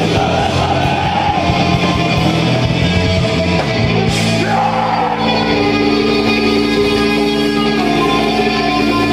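Live metal band playing loud distorted electric guitars, bass and drums, with shouted vocals. About four seconds in, the fast drumming gives way to long, held guitar chords.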